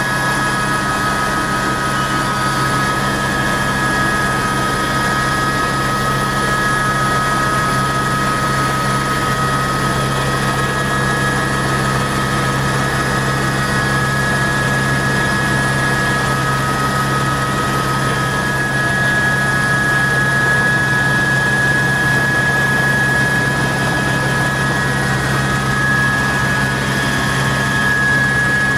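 Helicopter running steadily in flight: a constant low rotor drone under a high, even turbine and gearbox whine.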